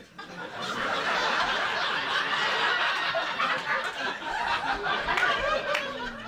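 Comedy club audience laughing hard at a punchline. The laughter swells within the first second, holds steady for several seconds and eases slightly near the end.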